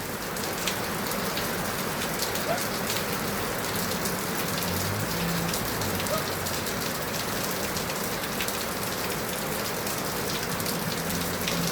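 Heavy rain falling steadily, with individual drops ticking sharply on nearby surfaces.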